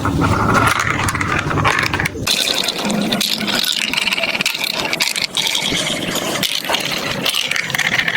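Marbles rolling and rattling down plastic marble run tracks: a continuous dense clatter of small clicks. About two seconds in the low rumble drops away and the rattle turns higher and brighter.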